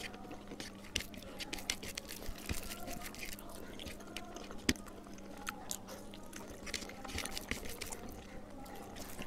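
Eating rice by hand: fingers squishing and mixing rice with leftover fish curry on a plate, and chewing, heard as many small scattered wet clicks. A faint steady hum runs underneath.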